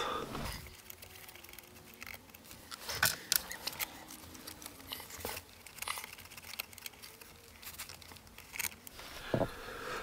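Faint, irregular metal clicks and rustling as nuts and washers are worked off the terminal studs of a PAC 80 battery isolator by hand.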